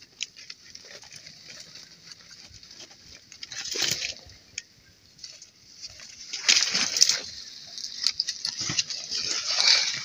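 Footsteps crunching and sloshing through wet snow and slush, with heavy breathing from the walker. The steps get louder from about six and a half seconds in.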